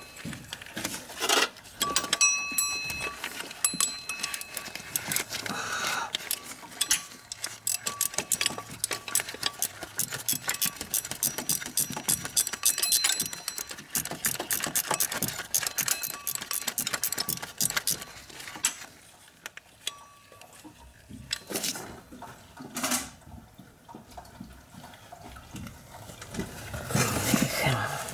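Rapid, fast-repeating metallic clicking from a ratchet wrench worked by hand on the water pump pulley area of a four-cylinder engine. The clicking thins out past the middle to a few separate knocks, then a louder rustling bout of handling comes near the end.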